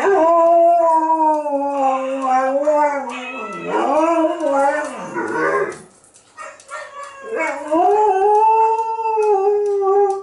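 Czechoslovakian Wolfdog howling: a long howl that sags in pitch and breaks into wavering, falling notes, then after a short pause a second long, steady howl.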